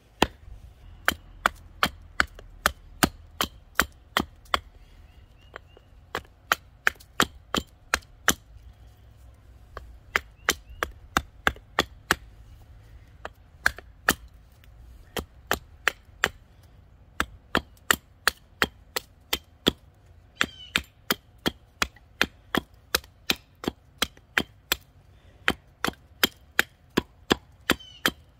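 Hatchet chopping at the end of a branch laid across a wooden stump: a steady run of sharp wooden chops, about three a second, with a few short pauses.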